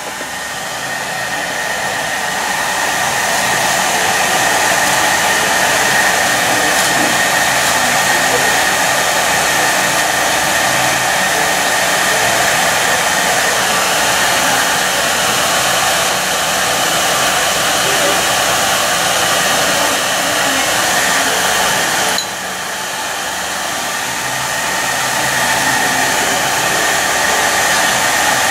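Hair dryer blowing steadily, a loud rush with a faint high whine. About two-thirds of the way through it drops suddenly in level, then slowly climbs back.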